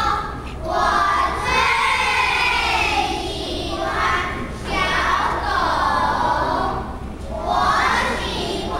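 A class of second-grade children reciting a Chinese poem together in unison, their many voices rising and falling as one in long, chant-like phrases, with short pauses between lines.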